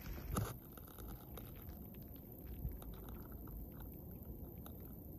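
Handling noise on the phone: a knock about half a second in, then scattered small crackles and clicks over a low rumble.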